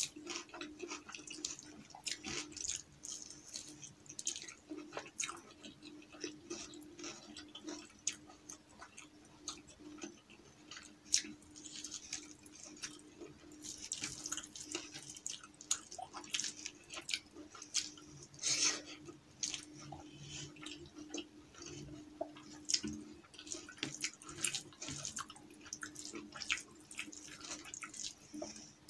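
Close-miked ASMR eating sounds of rice with dal and tandoori chicken eaten by hand: wet chewing and mouth clicks, with fingers squishing through the rice and dal on the plate. Sharp wet clicks come irregularly throughout over a faint steady hum.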